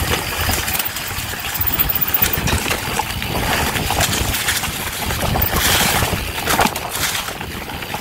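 Mountain bike riding fast down a dry, leaf-covered dirt trail: tyres rolling over leaves and dirt, with the bike rattling and knocking over bumps and wind on the microphone.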